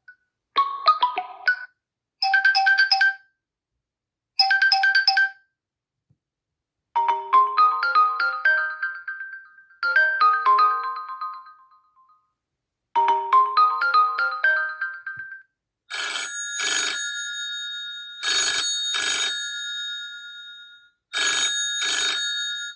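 Huawei P30 Lite smartphone ringtones played one after another. First comes a short melodic phrase repeated every couple of seconds, then a longer rising chime phrase repeated about every three seconds. Near the end there is a brighter ring in paired pulses, like a telephone bell.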